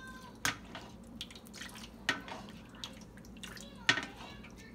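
Pan juices ladled and poured over roast chickens in an enamel roasting pan, splashing and dripping back into the pan. The ladle knocks against the pan three times, about a second and a half apart.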